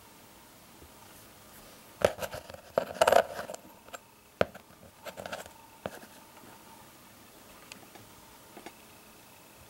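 Handling noise from fingers on the camera: a cluster of sharp clicks, taps and short rubbing scrapes about two seconds in, loudest in the first second and a half, then a few faint clicks near the end.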